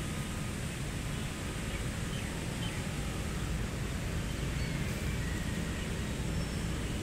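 Steady low outdoor background rumble, with a few faint, short, high chirps now and then.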